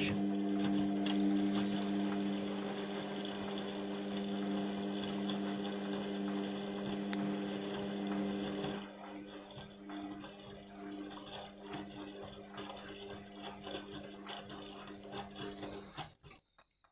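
Indesit washing machine running mid-wash with a steady mechanical hum. The hum drops in level about nine seconds in, continues more unevenly, and cuts off shortly before the end.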